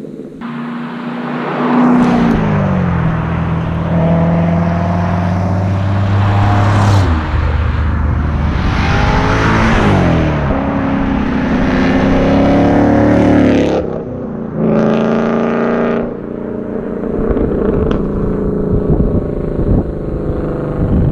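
C7 Corvette Z06's supercharged V8 being driven hard, its pitch climbing, holding and dropping several times as it pulls through the revs, with a brief loud burst of throttle about fifteen seconds in before it eases off.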